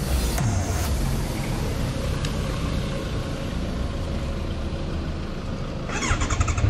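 Kawasaki Z1000 inline-four motorcycle engine running steadily while riding, heard under a noisy rush. Electronic music cuts back in near the end.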